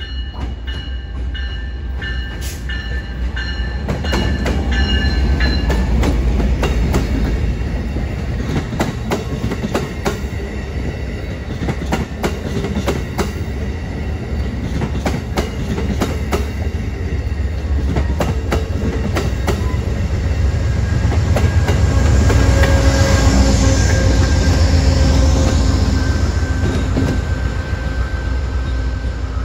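Amtrak Downeaster passenger train passing close by: a steady low rumble with the wheels clicking over rail joints as the passenger cars go past, then the deeper, louder rumble of the trailing GE P42 diesel locomotive pushing at the rear, a few seconds before the end.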